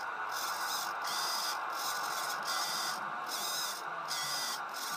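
Traxxas 2055 RC servo running in short high-pitched whirring bursts, about five of them, each about half a second, as its motor and gears drive the output shaft back and forth.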